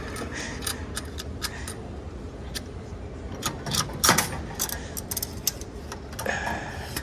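Irregular clicks and clacks of a coin-operated capsule vending machine being played, with a louder knock about four seconds in.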